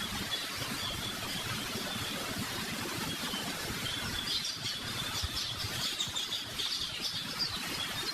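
Small birds chirping in the background, the chirps thicker in the second half, over a steady hiss and low rumble.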